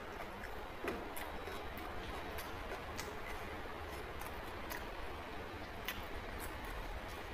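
Eating sounds: irregular small clicks and ticks, a few a second, over a steady background hiss.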